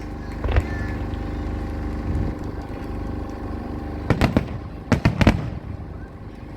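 Fireworks going off: one bang about half a second in, then a quick cluster of sharp cracking bangs around four to five seconds in, over a steady low rumble.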